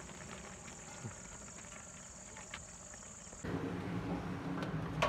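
Steady high-pitched chirring of crickets with a few faint ticks. About three and a half seconds in it cuts to a louder, fuller background with a few sharp clinks near the end.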